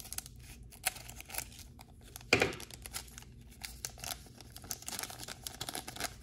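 Scissors cutting open a foil trading-card pack, then the foil wrapper crinkling and rustling as the cards are slid out. One louder sharp crackle comes about two and a half seconds in.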